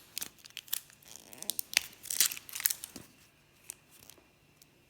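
Crinkly plastic toy packaging being torn and peeled open by hand, a quick run of sharp crackles that thins out to a few faint ones after about three seconds.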